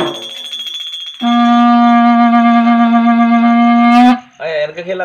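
A short plastic tube blown like a horn: one long, steady, level note held about three seconds, starting a second in and cutting off abruptly near the end. A faint ringing dies away just before it.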